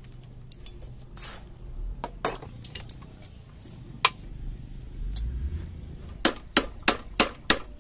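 Sharp metal clinks and taps of hand tools on a TVS 50 moped's steel handlebar and control fittings as it is taken apart: a few scattered clinks, then a quick run of six taps, about three a second, near the end.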